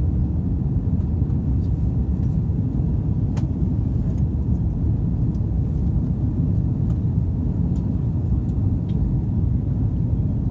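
Cabin noise of a Hawaiian Airlines Airbus A330 climbing after takeoff: the steady low rumble of its Rolls-Royce Trent 700 engines and the rushing airflow, heard inside the cabin at a window seat, with a few faint clicks.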